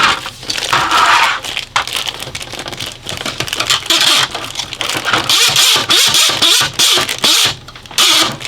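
Plastic packaging bags crinkling and rustling in irregular bursts as small toy parts are handled and pulled at, with the bags not yet opened.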